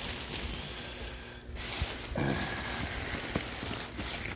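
Polystyrene packing peanuts and a plastic bag rustling and crackling as a hand rummages through them in a cardboard box, with a short lull about a second and a half in.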